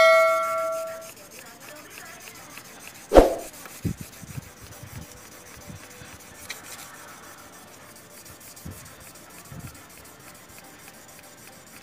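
An agate gemstone being rubbed back and forth by hand on wet 2000-grit sandpaper, a faint steady scrubbing: the fine wet-sanding stage that brings the stone to a shine. A bell-like ding fades out over the first second, and a single sharp knock sounds about three seconds in.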